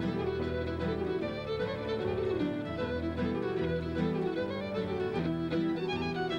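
Background music: a fiddle playing a tune over sustained low accompanying notes.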